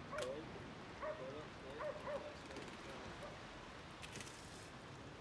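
A dog whining, a few short wavering high-pitched calls in the first two seconds or so, faint against the open-air background.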